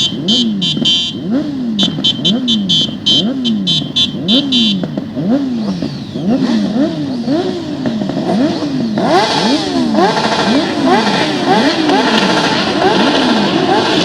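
Off-road motorcycle engines revved up and down over and over, the pitch climbing and falling again about every two thirds of a second, with a second bike at a higher pitch joining about nine seconds in. A rapid high rattle runs through the first five seconds.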